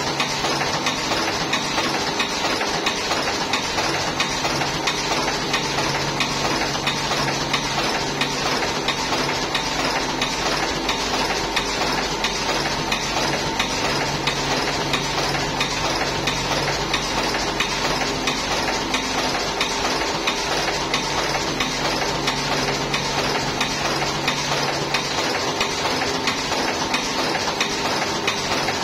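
Buffalo V5 S automatic cigarette filling machine running steadily: a continuous fast mechanical clatter of small ticks over a steady motor hum as it fills tubes with tobacco.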